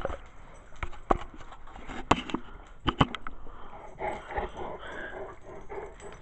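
A few sharp clicks and knocks of handling, then a dog making short whiny sounds close to the microphone about four seconds in.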